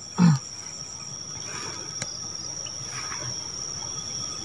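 Crickets trilling steadily in one high, unbroken tone, with a short vocal exclamation right at the start.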